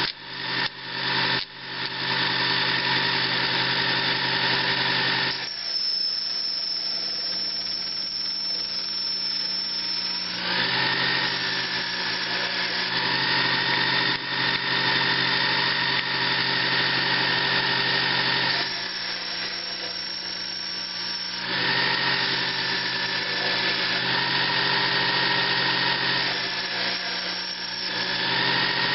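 Sherline mini lathe running steadily while its tool cuts a taper into a 6061 aluminum part. The sound changes twice for a few seconds, about five seconds in and again near twenty seconds, with a few brief dips in the first two seconds.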